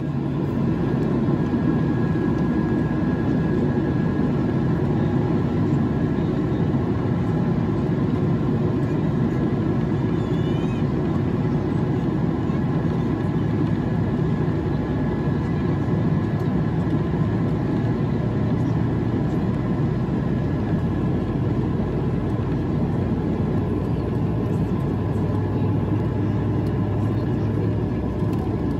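Jet airliner engines running steadily at taxi power, heard inside the passenger cabin: a constant rumble with a faint steady whine as the plane taxis on the ground.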